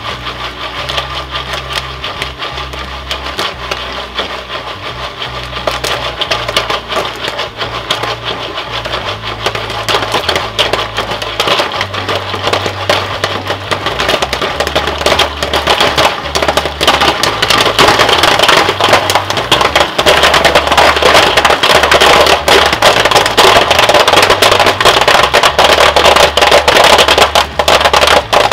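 Jiffy Pop popcorn popping inside its foil pan as the pan is shaken over a propane stove burner. The pops start sparse and build into rapid, dense popping, at its loudest in the second half.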